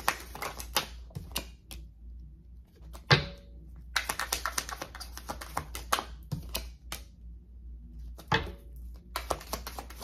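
A deck of tarot cards being shuffled by hand: bursts of rapid flicking clicks as the cards slide past each other, with a couple of louder single taps.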